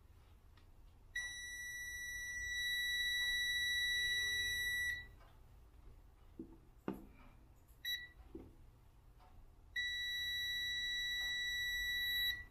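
Digital multimeter's continuity beeper sounding a steady high-pitched beep for about four seconds, then a short blip, then a second beep of about two and a half seconds near the end. The beep means the meter sees a closed, low-resistance path between its probes. A faint low hum runs underneath, and there is a single knock of handling about halfway through.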